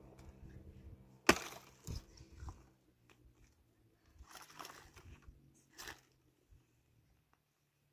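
Axe chopping a dry dead branch: one sharp chop about a second in, a couple of lighter knocks after it, then the crackle of dry wood splitting and snapping twice more later on.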